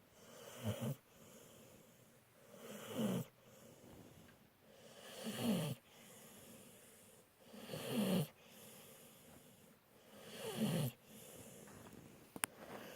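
Pit bull snoring rhythmically: five snores about two and a half seconds apart, each breath swelling and ending in a pitched rattle that falls in pitch.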